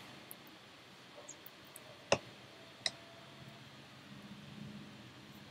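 Two sharp clicks of a computer keyboard about two seconds in, less than a second apart, over faint steady room hiss.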